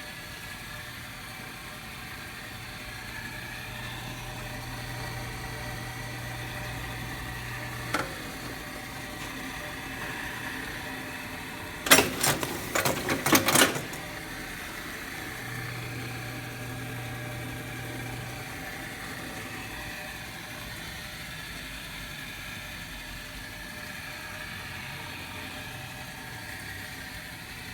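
Yamada Kikai Y45 string tying machine running with a steady motor hum. There is a single sharp click about eight seconds in, then a rapid run of loud mechanical clattering for about two seconds, around twelve to fourteen seconds in.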